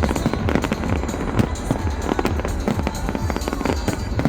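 Fireworks bursting and crackling in rapid, irregular succession, with deep booms, over a music soundtrack.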